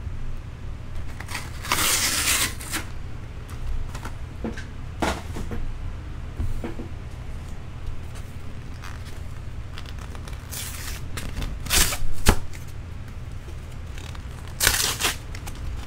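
Paper trading-card pack wrappers rustling and tearing as box-topper packs are pulled out and opened by hand, in several short bursts over a steady low hum.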